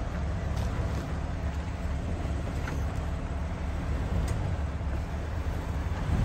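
Jeep Wrangler's engine running at low revs as it crawls slowly down a rocky trail, a steady low rumble.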